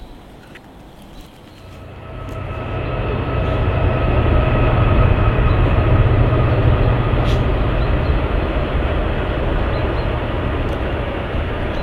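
Loud, low mechanical rumble that swells up over about two seconds, then holds steady, with a faint even whine above it.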